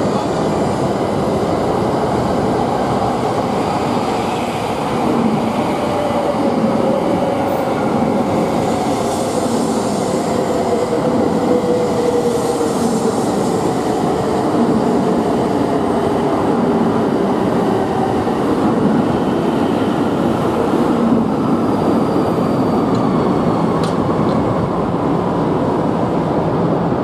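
E2-series Shinkansen bullet train running past at close range: a steady, loud rumble of wheels and running gear, with a motor whine that falls slowly in pitch over several seconds.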